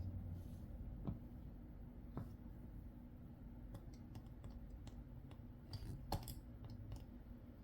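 Small metal gears and bearings of an RC crawler transmission clicking and tapping as they are handled and fitted together: scattered light clicks, the loudest about six seconds in.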